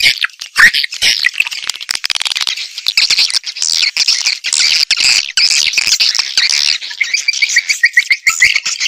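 A dense chorus of swiftlet calls, many chirps and twitters overlapping, with a fast run of short repeated chirps in the last two seconds. It is a swiftlet lure recording, played from speakers to draw swiftlets in to nest.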